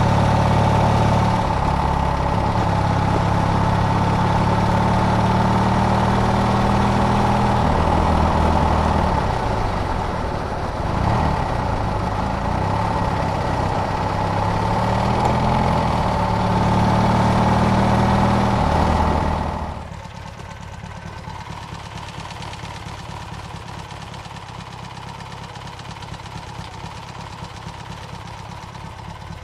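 Triumph T140 parallel-twin motorcycle engine running on a ride, its pitch dipping and rising with throttle changes. About twenty seconds in the sound drops suddenly to a much quieter, steady low running.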